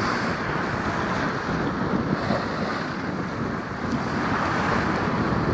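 Steady wind rushing over the microphone, with sea water washing around a jangada sailing raft under way.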